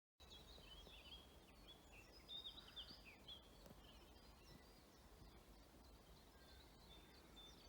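Faint, distant birdsong: short twittering chirps, busiest in the first few seconds, over a steady low rumble.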